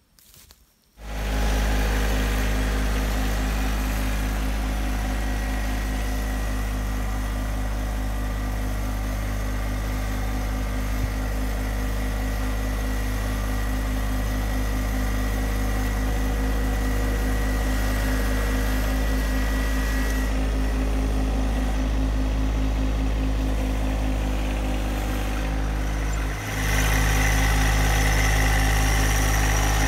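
Compact tractor's three-cylinder diesel engine running steadily, starting about a second in, with a brief dip late on.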